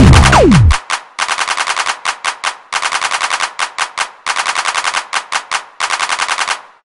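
Loud distorted electronic music with falling pitch sweeps cuts off under a second in. It gives way to runs of rapid-fire sharp bursts, about nine a second, like automatic gunfire, broken by short gaps, which stop just before the end.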